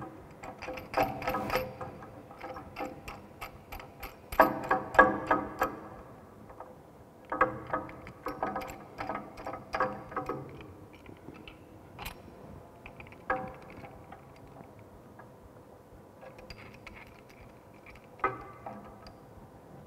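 Pipe wrench working a threaded steel pipe joint tight: runs of quick metallic clicks and clinks as the jaws bite and slip back for each turn, thinning to a few single sharp clicks later on.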